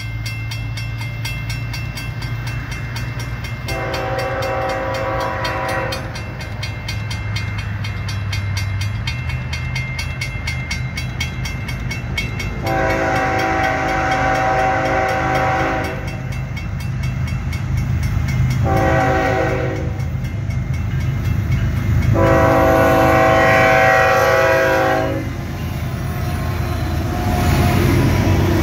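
BNSF diesel freight locomotive sounding its horn in the grade-crossing pattern: two long blasts, one short and a final long one. A railroad crossing bell rings steadily under the engine's low rumble, which grows louder as the locomotive reaches the crossing near the end.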